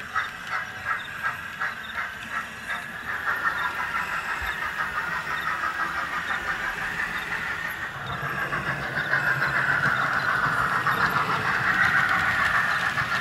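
OO gauge model train running on the layout's track: wheels clicking over rail joints about twice a second at first, then a steady rolling rumble that grows louder toward the end.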